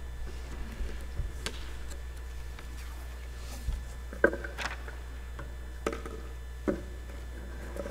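Steady low hum with a few short knocks and clicks of objects being handled on a wooden pulpit near its microphone, the loudest about four seconds in.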